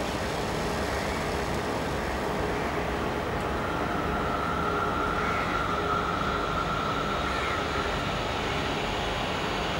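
A steady mechanical rumble, with a thin high whine that comes in about three and a half seconds in and fades out near eight seconds.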